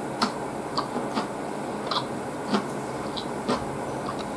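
Close-miked chewing: irregular wet mouth clicks about twice a second as bamboo shoots (menma) are chewed, over a steady background hiss.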